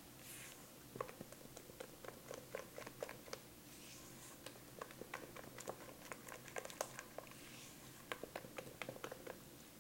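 A spatula scraping and tapping against the sides of a stainless-steel stand-mixer bowl while stirring thick chocolate cake batter, making faint, irregular small clicks and scrapes.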